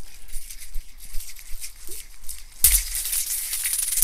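Small plastic object with a spring on it, swung around: a dry, scratchy patter of fine ticks and rustles that sounds like insects scurrying, with a sharper, louder burst a little past halfway and denser rattling after it.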